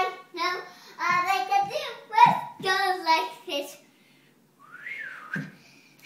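A child's high voice singing a sing-song tune without clear words, breaking off a little under four seconds in, followed near the end by a short high sound that rises and then falls in pitch.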